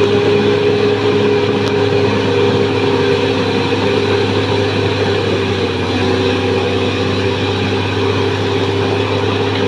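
Caterpillar D6R XL bulldozer's diesel engine running steadily, with a slight change in its note about six seconds in.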